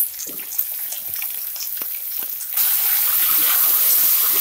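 Raw, freshly washed chicken pieces frying in hot oil in a pressure cooker as a spatula turns them: scattered scrapes and knocks at first, then a loud, steady sizzle sets in about halfway through as the wet meat spreads into the oil.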